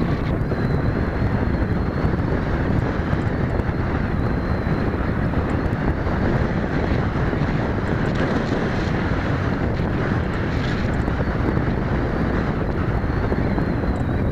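Wind buffeting the microphone, with a faint, thin, slightly wavering high whine from the sailplane's small Cox model engines at a distance.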